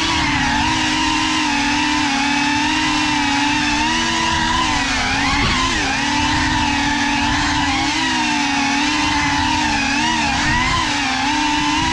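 Electric motors and propellers of an FPV quadcopter whining steadily, the pitch wavering up and down with the throttle and dipping briefly twice.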